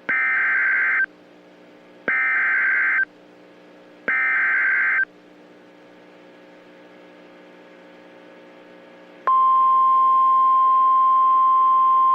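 Emergency Alert System SAME header: three one-second bursts of warbling data tones, a second of quiet between each, followed about nine seconds in by a single steady, unwavering alert tone of one pitch, the weather radio warning tone that precedes a National Weather Service warning.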